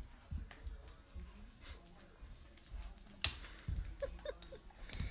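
A dog moving about on carpet, its collar tags jingling, with a sharp clink a little after three seconds in and three short squeaks about a second later.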